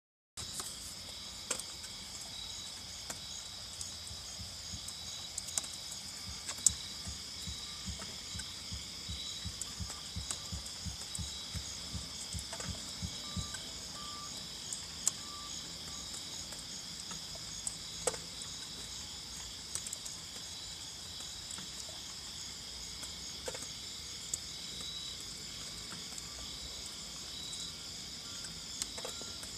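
A steady, high-pitched chirring insect chorus with a faint high beep repeating at an even pace throughout, plus a few lower beeps in the middle and scattered small clicks. The beep's source is unidentified; it seems to come from the sky.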